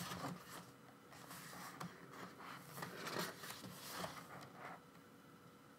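Faint rustling and soft brushing of album photobook pages being handled and turned, a few separate times.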